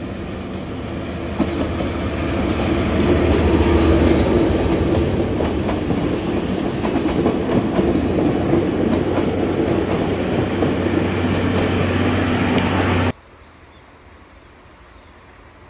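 JNR Class DE10 diesel-hydraulic locomotive's V12 diesel engine working as it hauls a train of coaches past, with the wheels clattering over rail joints. The sound builds over the first few seconds, holds loud, then cuts off abruptly about 13 seconds in, leaving only faint background.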